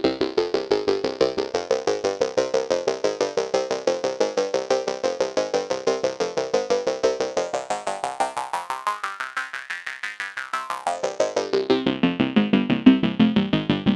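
Arturia MatrixBrute analog synthesizer playing a fast repeating sequenced pattern through a Mannequins Three Sisters Eurorack filter. The filter is swept so that the tone grows brighter and thinner, losing its bass, about two-thirds of the way through, then closes back to a darker, fuller sound.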